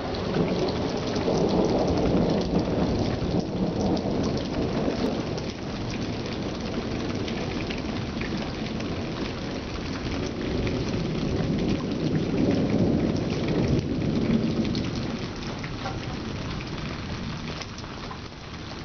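Rain falling steadily with thunder rumbling, swelling during the first few seconds and again about ten to fourteen seconds in.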